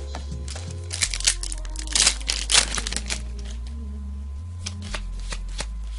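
Foil booster-pack wrapper crinkling as it is handled, in loud bursts about a second in and again from two to three seconds in, with smaller card clicks after. Background music with a steady bass line runs underneath.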